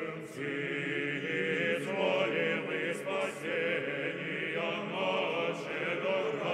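A choir singing a slow chant, several voices holding long, wavering notes together.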